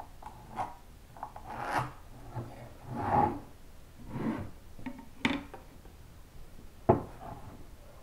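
Wooden boards and a spatula template sliding and scraping across a wooden workbench in a few short strokes, with a couple of sharp wooden knocks as pieces are set down, the loudest late on.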